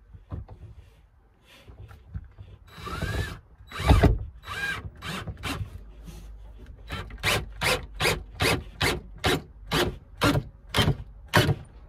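Screws being driven in to fix a bed support rail: a couple of short whirring runs with a rising pitch, then from about halfway a steady series of sharp ratcheting strokes, about two and a half a second.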